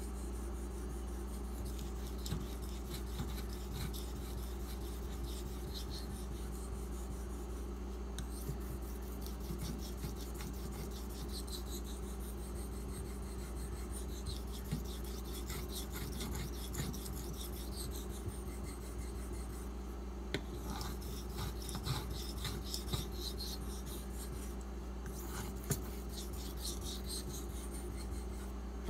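A 440C steel knife blade being stroked back and forth across a wet fine-grit (4000) water stone, a run of repeated soft scraping strokes as the convex edge is refined on the last stone before stropping. A steady low hum runs underneath.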